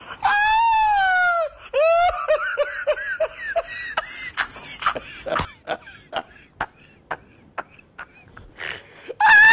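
A loud, high-pitched wailing cry, then a quick run of short cries falling in pitch, like laughter. After that come scattered sharp clicks and taps, and another wailing cry starts at the very end.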